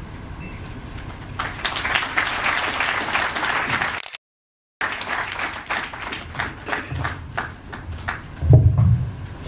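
Audience applauding, swelling to dense clapping about a second and a half in. The sound drops out completely for under a second, then scattered claps thin out, with a low thump near the end.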